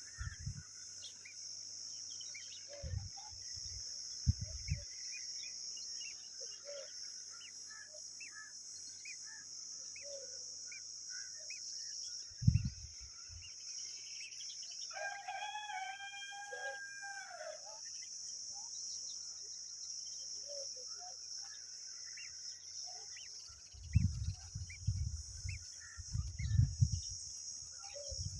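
A rooster crows once, about halfway through, a single call of about three seconds, over a steady high hiss and scattered faint bird chirps. A few low bumps come near the start and toward the end.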